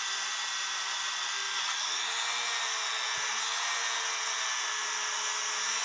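Dremel rotary tool running steadily with a cloth polishing disc, buffing a cuckoo clock movement with polishing compound; its whine rises slightly in pitch about two seconds in.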